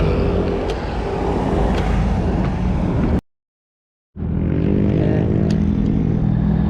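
Loud street traffic noise with a motor vehicle engine running close by. The sound cuts out completely for about a second midway, then returns as a steady engine hum.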